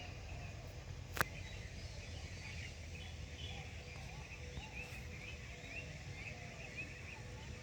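Many birds chirping, a steady stream of short, overlapping calls over a low background rumble, with a single sharp click about a second in.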